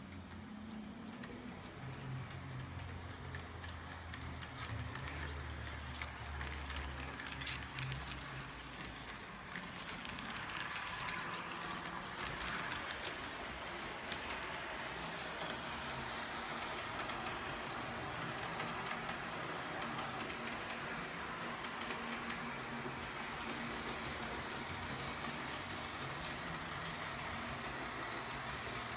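H0-scale model train running on the layout's track: a low electric-motor hum with light clicks of the wheels over the rails for the first nine seconds or so, then a steady rolling hiss.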